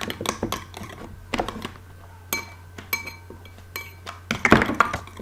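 A utensil clinking and scraping against a bowl as the slime mixture is stirred: a string of sharp taps with short ringing, the loudest cluster about four and a half seconds in.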